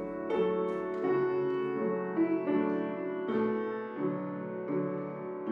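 Background music led by piano, sustained notes changing every half second to a second.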